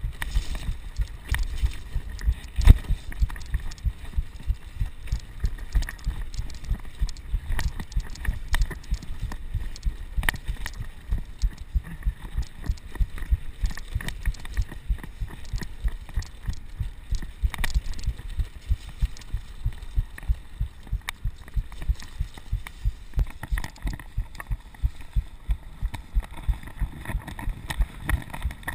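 Mountain bike ride heard through a chest-mounted GoPro: a low rumble of wind and tyre noise with rapid, regular low thumps, about three a second, as the camera jolts on the rider's chest, and one sharp knock about three seconds in.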